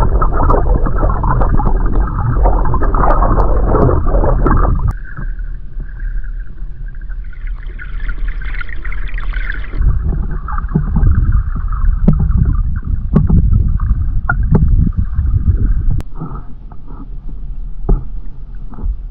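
Muffled rush and rumble of flowing stream water heard from underwater through a camera's housing, with scattered short knocks. It is louder for about the first five seconds, then drops back.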